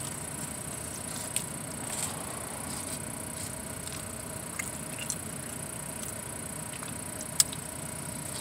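A person eating a burrito held in its paper wrapper: quiet chewing with a few small clicks, the sharpest about seven seconds in, over a steady low hum.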